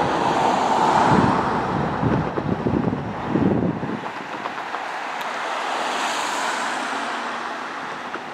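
Wind buffeting the microphone, in heavy low gusts for about the first four seconds and then easing to a steadier rush.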